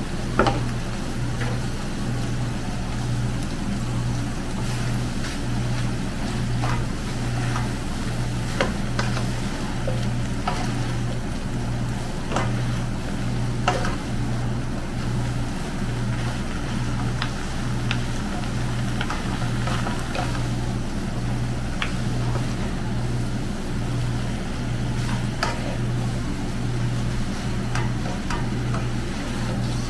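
Noodles and vegetables being stir-fried in a nonstick pan with wooden spatulas: a sizzle with scattered clicks and scrapes of the spatulas against the pan. Under it runs a low hum that pulses evenly and is the loudest thing heard.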